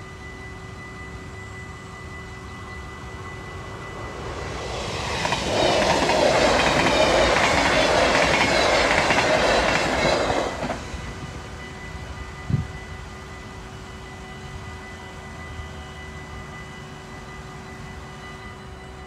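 Yellow NS double-deck electric passenger train passing over a level crossing: its rail and wheel noise builds over a couple of seconds, stays loud for about five seconds, then drops away abruptly. A steady ringing of the crossing bell runs underneath, and there is a single thump shortly after the train has gone.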